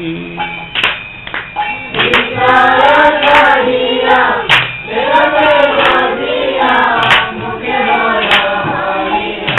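A group of voices singing a line of a Vaishnava devotional bhajan in unison, the chorus answer in a call-and-response kirtan, coming in fully about two seconds in. Sharp percussive strokes keep the beat roughly every second and a quarter.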